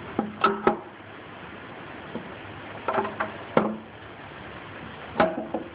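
Steady hiss of heavy rain, with a few short ringing metallic clinks as a mower-deck spindle housing is handled against the steel deck.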